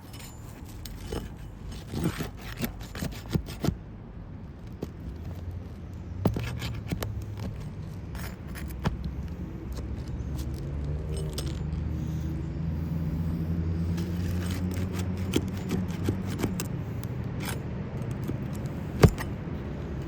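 Roof snake being worked under old asphalt shingles: scattered scraping, clicking and crackling of metal against brittle shingles and nails. There is one sharp knock near the end, and a low engine hum builds in the background in the second half.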